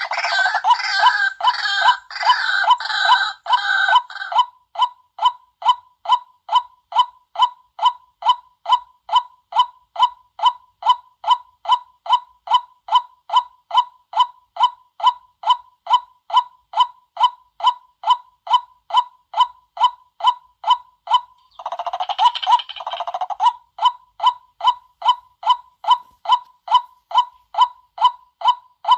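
White-breasted waterhen calling: a monotonous short "kwak" note repeated about twice a second, with bursts of harsher, rougher chattering calls for the first four seconds and again about 22 seconds in.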